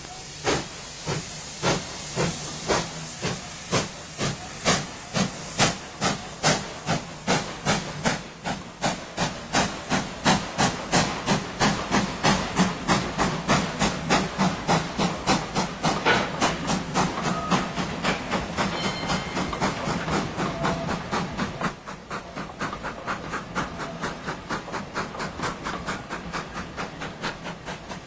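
Steam locomotive exhaust beats from a GWR Hall class 4-6-0 pulling away, the chuffs quickening from about one a second to three or four a second as the train gathers speed.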